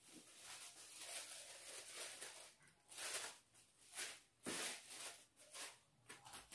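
Sheets of wrapping material rustling and crinkling as they are handled and folded, in a series of irregular swishes.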